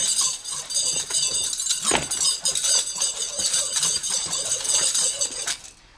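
Metal nunchaku swung and spun rapidly, the chain and sticks jangling and clinking without pause, with a thump about two seconds in. The jangling stops shortly before the end.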